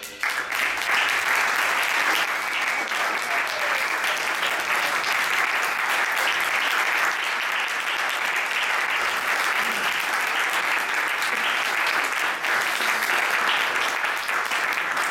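Audience applauding: dense, steady clapping that begins the moment the jazz band's final note stops.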